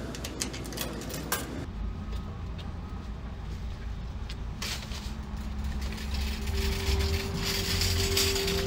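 Two sharp metallic clicks in the first second and a half as coins go into a laundromat machine's coin slot, over a steady low rumble of traffic. Near the end a steady high tone comes in and the sound grows louder.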